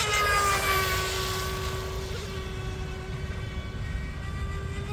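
Electric-motor whine of an RC mono boat with a 3-blade prop running at full speed on 3S. The pitch drops a little as the boat passes close in the first second, then the whine holds steady as it runs away.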